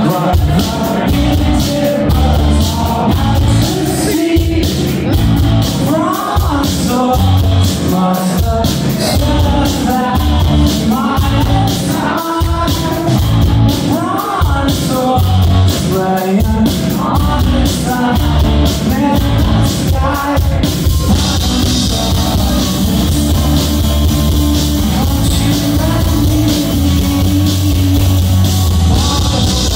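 A live rock band, heard from within the crowd: electric guitars, bass and drum kit playing steadily, with a male lead vocal singing through much of the first half. About twenty seconds in, the cymbals turn to a denser, louder wash.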